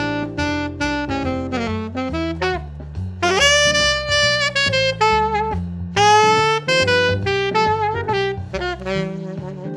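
Martin Committee III alto saxophone playing a jazz solo: runs of quick short notes, then two long held notes that each scoop up into pitch, over a stepping bass line.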